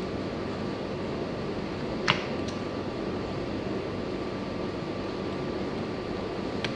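Steady room hum with one sharp click about two seconds in and a lighter click near the end, from plastic stroller wheel parts being handled and fitted together.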